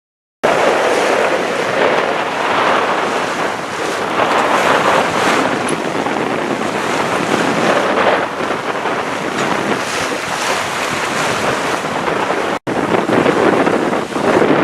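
Wind buffeting the microphone over the rush and wash of sea water aboard a sailing yacht under way, surging in level. The sound starts abruptly just after the start and drops out for an instant about two seconds before the end.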